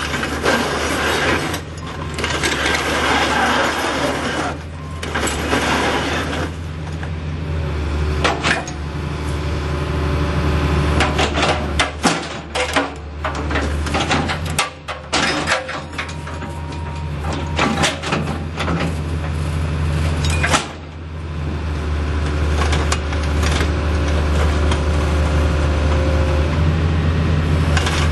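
John Deere 225C LC hydraulic excavator running, its diesel engine humming steadily. A loud rushing hiss fills the first few seconds, and a run of sharp metal clanks and knocks comes around the middle as the machine works.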